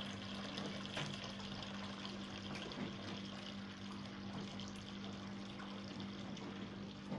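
Soapy wash water draining out of a Sharpgold 5 kg mini washing machine through its lowered drain hose, a steady flow with a constant low hum underneath.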